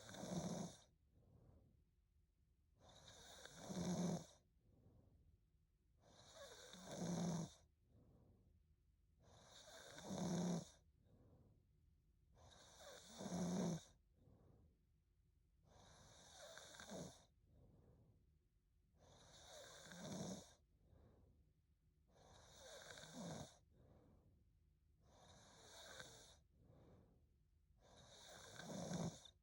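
A young woman snoring in her sleep: about ten snores, one every three seconds or so, each building up and then falling off quickly, with a softer breath between them.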